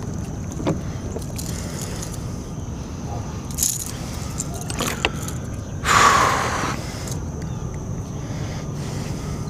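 A hooked largemouth bass fighting at the surface beside a kayak: a few light clicks and knocks, then a loud splash about six seconds in, over steady wind and water noise.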